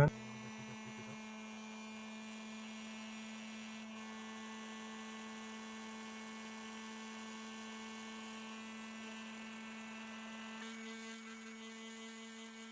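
Hot air rework gun's blower running steadily, a constant electric hum, while it heats a phone's CPU to reflow the solder beneath the chip.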